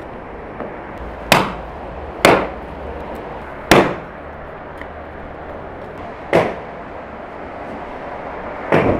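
Chunks of firewood knocking against each other as they are handled. There are five sharp wooden knocks at irregular intervals, each with a short ringing tail.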